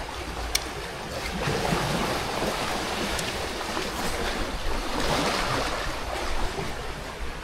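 Sea waves washing against a rocky shore, a steady rush that swells twice, with a few faint clicks.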